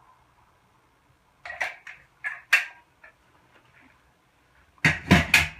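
Handling knocks from a caulking gun being put down and a rubber shower pan liner being shifted on a concrete floor: a few sharp knocks about a second and a half in, then a louder cluster of thuds near the end.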